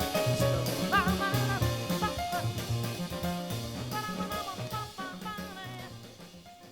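Jazz-samba band music fading out at the end of the song, the level dropping steadily to a faint finish.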